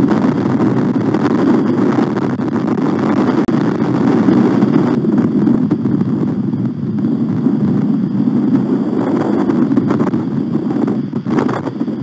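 Strong wind buffeting the outdoor eagle-nest camera's microphone: a steady, loud, low rumble, with a brief burst of higher rushing noise near the end.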